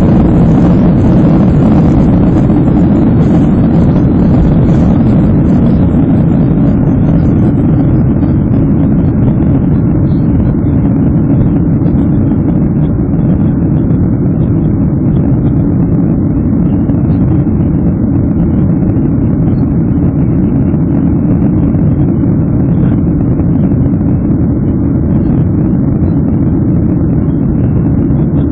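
Airbus A321 heard from inside the cabin during takeoff and climb-out: loud, steady jet-engine and airflow noise, deep and even. Its higher hiss fades over the first ten seconds or so as the plane leaves the runway, then the noise holds steady.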